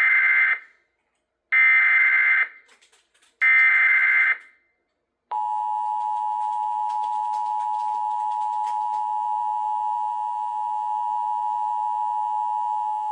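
Emergency Alert System tones relayed by a TFT EAS unit for a Special Marine Warning. Three loud screeching bursts of the digital SAME header come about two seconds apart. About five seconds in, a steady attention tone starts and holds for about eight seconds.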